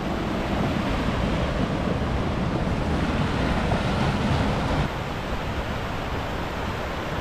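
Fast-flowing river rushing over rocks in white-water rapids, running high after heavy rain, a steady rush of water with some low wind rumble on the microphone. It drops a little in level about five seconds in.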